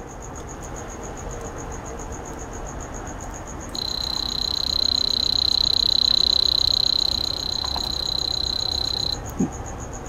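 Buzzer on a recycled remote-control fan circuit board, used as a continuity tester, giving one steady high beep. The beep starts about four seconds in and lasts about five seconds, showing the component under test conducts and is good.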